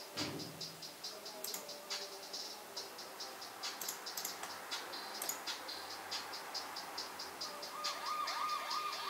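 Quiet electronic beat fading in: a fast ticking hi-hat pattern, about three to four ticks a second, slowly getting louder, with a wavering tone that zigzags up and down joining about eight seconds in.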